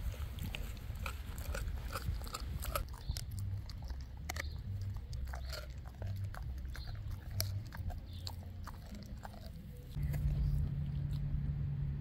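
Dog chewing and crunching a raw lamb shank and ground beef in quick, irregular bites. A steady low hum comes in near the end.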